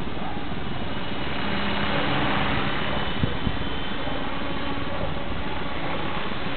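450-size radio-controlled helicopter in flight: a steady rotor and motor whine over a rushing hiss. Two short clicks about three seconds in.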